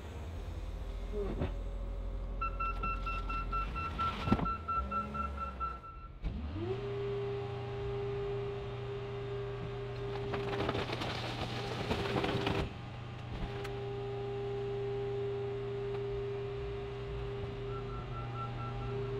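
Car crusher's machinery starting up about six seconds in and then running with a steady hum. A loud hissing burst lasts about two seconds near the middle. Fast electronic beeping sounds in the first few seconds and again near the end.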